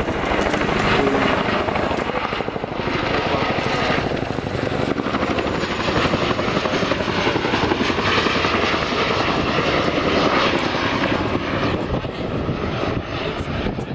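Boeing Chinook HC4 tandem-rotor helicopter in flight, its two rotors making a rapid, even chop over the steady noise of its twin turboshaft engines.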